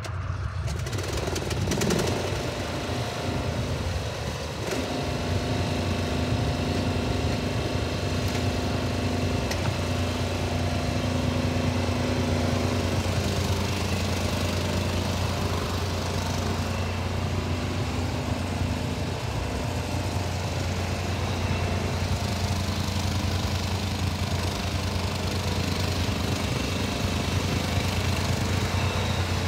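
MTD Yard Machines 17.5 hp riding lawn mower's engine running steadily as the mower is driven around, a constant low hum at an even level.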